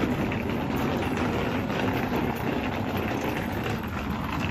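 Wheeled suitcase rolling over a concrete path with a steady low rumble, with footsteps of people walking.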